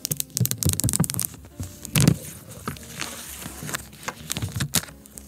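Crackling, scraping and clicking as an iPhone box and its plastic wrapping are handled and opened up close to the microphone. The crackles are densest in the first two seconds, with a louder scrape about two seconds in and a short hiss a little after three seconds.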